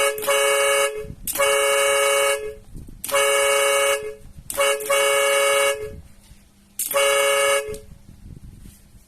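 HEYVO dual-trumpet 12 V electric air horn sounding five blasts of about a second each, with short gaps between them. Its two trumpets sound two close notes together, giving a loud two-tone blare.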